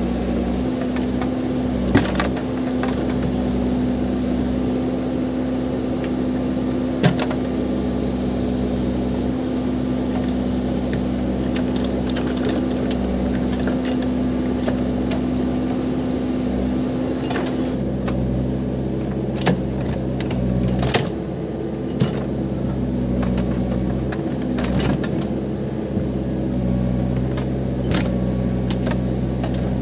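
Case 580 Super M backhoe loader's diesel engine running steadily while working, with a handful of short sharp knocks or clanks scattered through.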